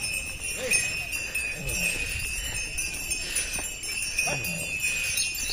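Cattle bells jingling steadily as a herd of cows and buffalo is driven along on foot.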